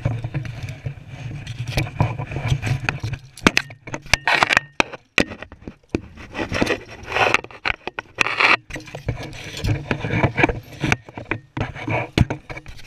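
Handling noise from a body-worn action camera knocking and rubbing against zip-line harness straps, metal hardware and clothing. It is a jumble of irregular scrapes, clicks and knocks.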